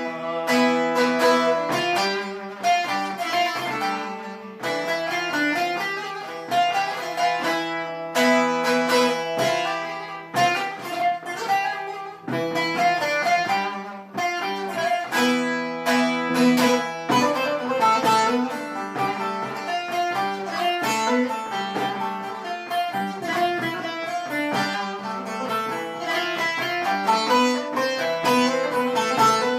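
Instrumental folk music: plucked string instruments play a fast, busy melody over a steady low drone.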